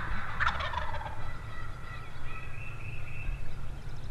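Wild turkey gobbling once, about half a second in: a rapid rattling call that falls in pitch.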